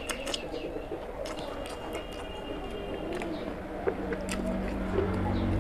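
Close-miked wet chewing, lip smacks and mouth clicks from eating oily mutton fat curry and rice by hand. A low hum comes in near the end.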